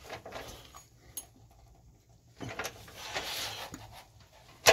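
Hand-tool work on a seized 13 mm bumper bolt: rustling and straining on a half-inch-drive wrench with a long extension, ending in one sharp, loud crack near the end as the Craftsman 13 mm socket breaks under the load.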